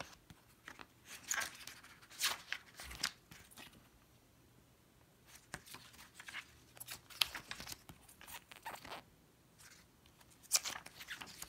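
Glossy booklet pages being turned by hand: a series of short paper rustles and swishes, with quieter gaps between.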